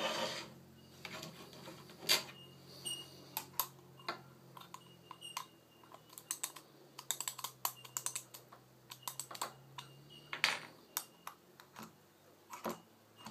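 Irregular small clicks and taps of a wind-up gorilla-head toy being handled and set down on a wooden desk, with a louder knock about two seconds in and another at about ten seconds.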